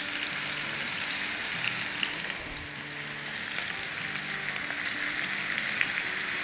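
Steady sizzle of yogurt-marinated chicken tikka pieces frying in hot oil in a pan over a medium-high gas flame, with a few light clicks as more pieces are laid in.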